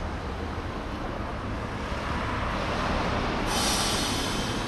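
Iyotetsu streetcar No. 68 standing at a tram stop over a steady low rumble of street traffic. About three and a half seconds in, a loud, high-pitched hiss with a thin whine in it starts suddenly from the tram and lasts about a second.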